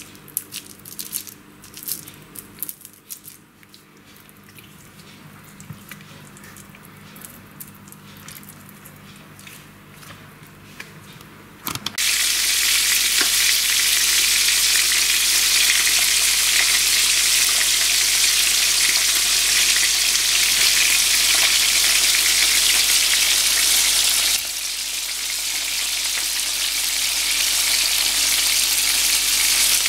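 Crucian carp being scaled by hand over a plastic cutting board: faint, irregular scraping and clicking. About twelve seconds in, loud, steady sizzling of whole crucian carp frying in oil in a pan takes over, a little quieter for the last few seconds.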